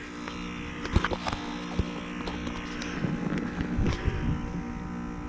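A 2011 Carrier Comfort 3-ton heat pump's outdoor unit hums steadily while in its defrost cycle, waiting to switch back to heating. A few sharp clicks come about a second in and again near four seconds.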